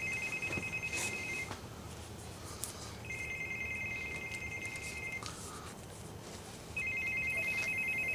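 A telephone ringing with a fast two-tone trill. The rings are about two seconds each with short pauses between them: one ends early on, a full ring comes in the middle, and another starts near the end. It is an incoming call that goes unanswered.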